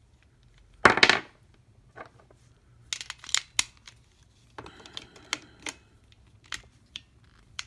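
AA batteries clicking and clacking against a plastic battery carrier as they are pushed into it, with a louder rattle about a second in and scattered clicks after.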